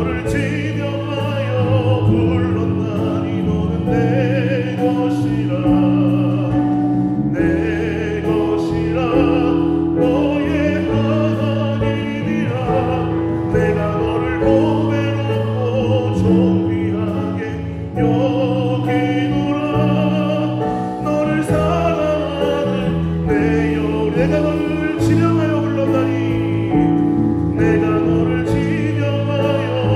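Church praise band playing a worship song: several voices singing together with vibrato over electric bass guitar, keyboard and drums.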